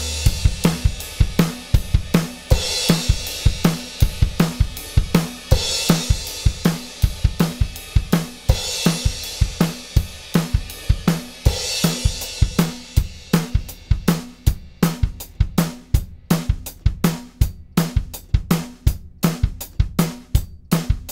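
Drum kit playing a steady, busy beat of kick, snare and hi-hat, with a cymbal crash about every three seconds through the first two-thirds and tighter, drier hits after that. It is a recorded drum track played back as audio through the Retro Powerstrip channel strip compressor.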